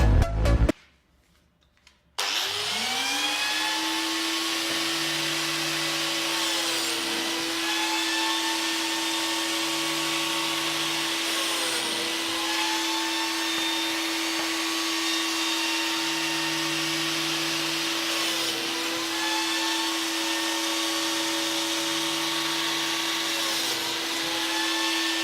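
An electric power tool motor spins up with a rising whine and runs at a steady pitch. The upper tones dip briefly four times, every five seconds or so, as if the tool is loaded for a moment.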